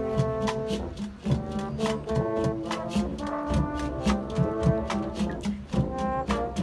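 Marching band playing: brass section holding chords over a steady beat of drum hits.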